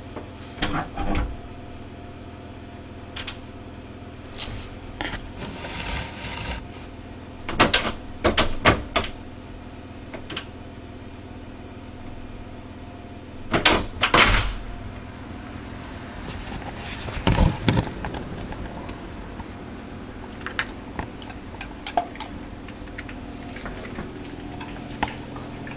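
Puppy's paws knocking and scraping at a uPVC glazed door and rattling its lever handle, as the paws slip on the wet handle. The knocks come in scattered clusters, the loudest a little after the middle. A steady low hum runs underneath.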